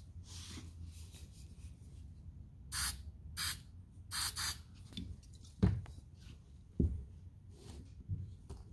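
Aerosol spray can giving four short hissing bursts in quick succession, followed by two sharp knocks.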